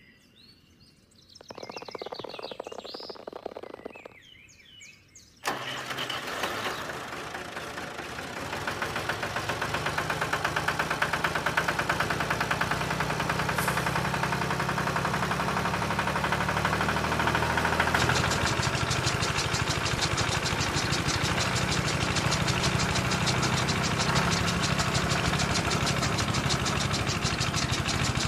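A tractor engine sound starts abruptly about five seconds in and settles into a steady running. It powers a miniature chaff cutter through a shaft from the toy tractor. From about two-thirds of the way through, a fast, even clatter joins it as the cutter's blades chop grass.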